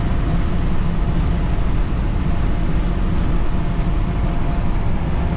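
Steady cab noise of a Ford F-550's 6.7 L Power Stroke V8 turbo-diesel cruising at highway speed under a heavy towing load: the engine runs steadily at about 2200 rpm with constant road noise, heard inside the cab.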